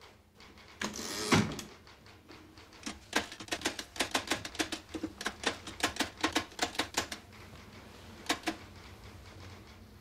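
Typewriter: paper wound in around the platen with a short rasp, then a quick run of key strikes, about five a second, for several seconds, with a last couple of strikes near the end.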